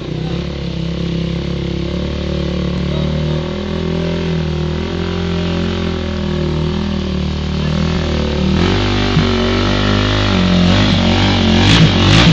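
Sport quad (ATV) engine running and revving unevenly as it is ridden through deep mud ruts, getting louder and higher in pitch after about eight seconds. Near the end a rhythmic beat comes in over it.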